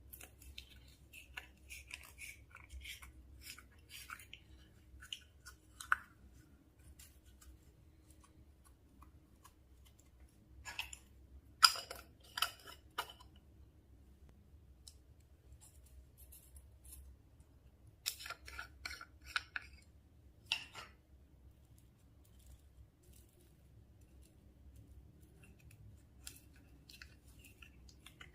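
Slime being handled and pressed, giving bursts of sticky crackling clicks and pops in four clusters, with quiet gaps between them; the sharpest click comes about twelve seconds in.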